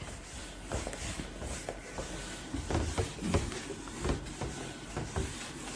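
Handheld whiteboard eraser scrubbing marker off a whiteboard: a run of irregular short rubbing strokes with light knocks.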